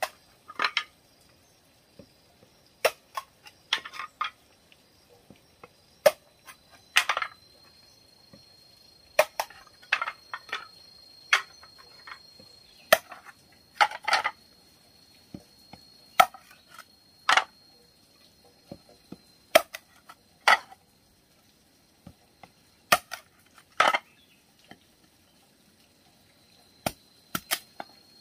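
Heavy chopping knife striking and splitting bamboo tube sections: sharp chops and cracks every second or two, some in quick pairs.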